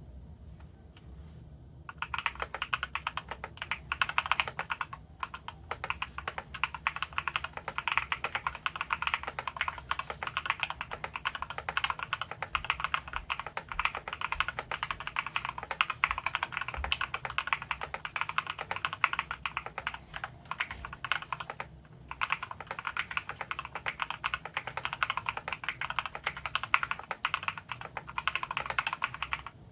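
Typing on a KBD67 Lite R3 custom mechanical keyboard with lubed Epsilon linear switches, PBT keycaps, and a tape mod and PE foam mod: a dense, fast run of keystrokes that starts about two seconds in, with brief pauses.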